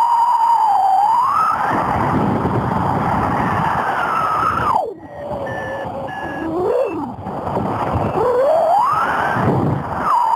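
Strong wind rushing past a paraglider in flight, with a whistling tone that wavers and glides up and down in pitch, dropping out briefly about halfway through.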